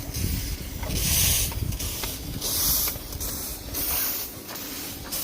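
Steam hissing from a 5-inch gauge live-steam locomotive, in three separate bursts of about half a second each, over a low rumble.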